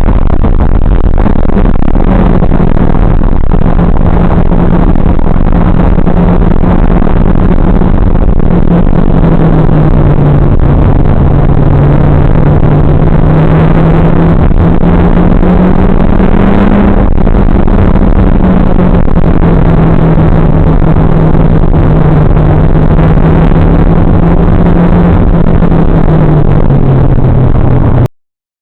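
Mitsubishi Lancer Evolution X GSR's turbocharged four-cylinder engine running under load with heavy road and wind noise. The engine note rises and falls slowly as the car is driven on track. The recording is overloaded and distorted throughout, and it cuts off suddenly near the end.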